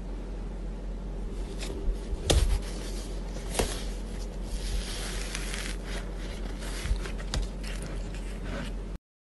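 Hands pressing, stretching and peeling apart thick fluffy slime in a plastic tub: sticky crackling and scratching with many small pops, a few of them sharper, the loudest a little over two seconds in.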